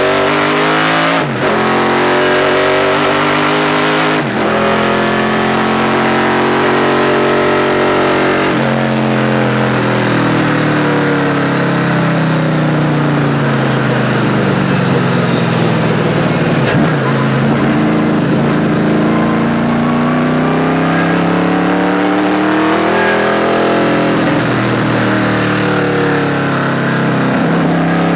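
Race car's all-forged roller small-block Chevrolet V8, heard loud from inside the cockpit, pulling hard. Its pitch climbs with two quick breaks in the first four seconds as it shifts up, then falls away and climbs again twice as the car lifts off and accelerates through the infield corners.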